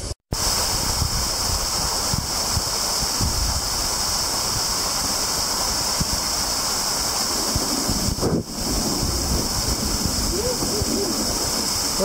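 Small cliff waterfall splashing steadily onto the lake surface, a continuous rushing hiss, with wind buffeting the microphone.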